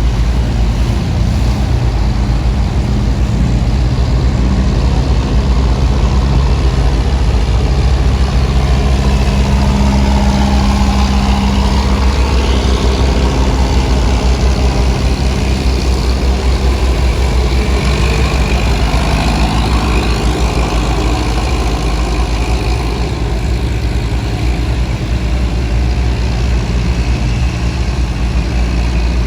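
Diesel engine of a bottom-trawl fishing boat running steadily under way, a loud deep hum whose pitch shifts a little now and then.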